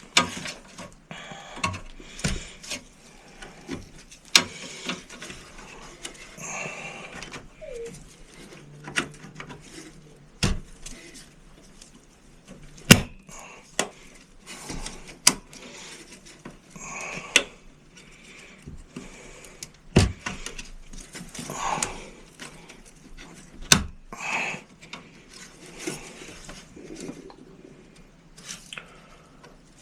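RAM modules being pushed into a Dell desktop's memory slots, with sharp plastic clicks every few seconds among rustling handling noise: the modules seating and their retention clips snapping shut.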